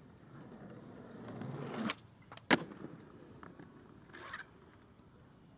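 Skateboard wheels rolling on concrete, growing louder, then cutting off abruptly as the board leaves the ground, followed by a loud, sharp clack of the board landing or striking the ledge about two and a half seconds in. A short scraping burst comes a little after four seconds.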